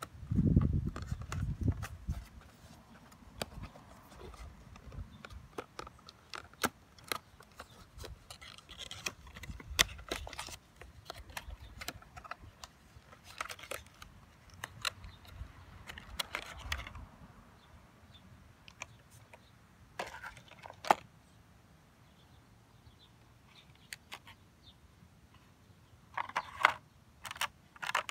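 Cardboard phone-case box being opened and its clear plastic tray handled: scattered clicks, scrapes and crinkles, with a low rumble in the first couple of seconds and a busier run of clicks near the end.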